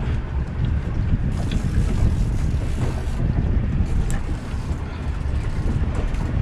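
Wind buffeting the microphone aboard a small boat at sea, a steady low rumble.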